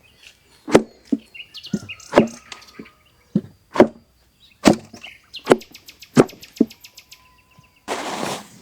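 A series of sharp, irregular strikes, roughly one every half-second to second, like a tool chopping or pounding, with birds chirping. A rushing noise starts near the end.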